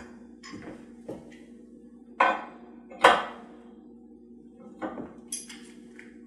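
Metal parts of a steel bow press clanking and knocking as its adapters are handled, with two loud clanks about two and three seconds in and lighter knocks around them. A steady low hum runs underneath.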